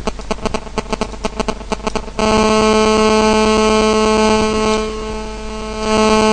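A rapid run of clicks for about two seconds, then a steady, low-pitched electronic buzz that starts suddenly and holds evenly for about four seconds.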